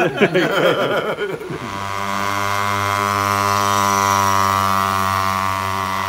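An engine passing by: a steady low drone with even harmonics that swells over about two seconds, peaks, then slowly fades, its pitch sinking slightly as it goes.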